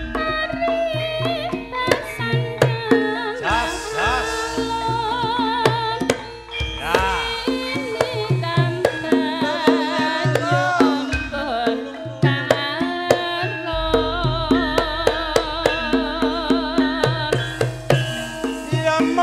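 Live Javanese gamelan music without words: quick hand-drum strokes over sustained gong and metallophone tones, with a wavering melody line on top.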